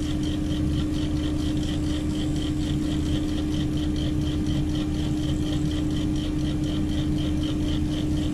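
Large mobile crane's diesel engine running steadily with a constant hum, overlaid by a high-pitched pulsing about three times a second.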